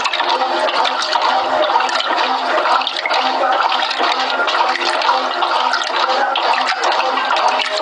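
Brastemp Clean 6 kg top-loading washing machine in its agitation cycle, churning a double duvet in the wash water: steady sloshing and swirling of water.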